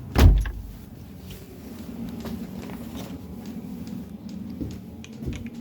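A door shuts with a single heavy thump just after the start, followed by a steady low hum with a few small knocks.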